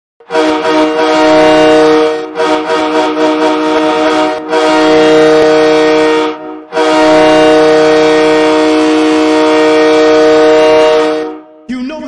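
Hockey arena goal horn sounding a loud multi-tone chord. It gives a blast of about two seconds, a run of short choppy toots, another two-second blast, then one long blast of about four and a half seconds, which marks a home-team goal.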